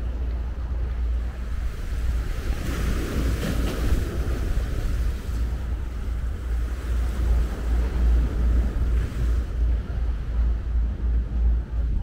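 Wind buffeting the microphone in an uneven low rumble, over sea surf washing ashore, with a louder wash of surf about three seconds in.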